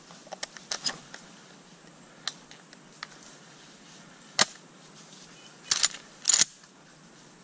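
Walking through dense dry brush: scattered twig snaps and branches brushing against clothing and gun, heard as a run of sharp clicks in the first second, a sharp snap about four and a half seconds in, and two short scraping rustles around six seconds.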